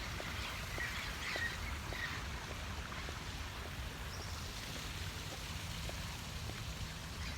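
Faint, steady outdoor background: a soft rush of noise with a low rumble, and a few faint chirps about one to two seconds in.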